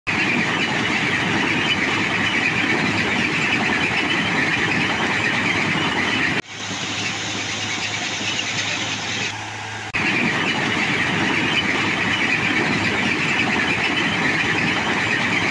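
Railway ballast cleaning machine running: a loud, steady mechanical din with a high-pitched squeal as its excavating chain and conveyors work. About six seconds in it cuts to a quieter stretch with a low steady hum, while the spoil conveyor throws ballast clear, and the loud din returns about ten seconds in.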